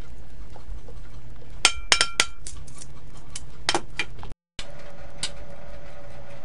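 Metal tongs clinking against a stainless steel pan of chicken drumsticks: a quick run of sharp clicks about a second and a half in, with a brief metallic ring, and a few more just before four seconds. After a short break, a steady hum with a faint tone.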